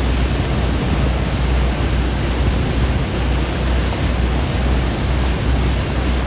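Loud, steady rushing noise with a low, fluctuating rumble, typical of wind buffeting the microphone aboard a moving tour boat.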